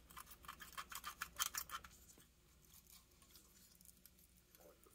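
Faint scratching and small clicks of a plastic-framed projector lamp assembly and its wire being handled, mostly in the first two seconds.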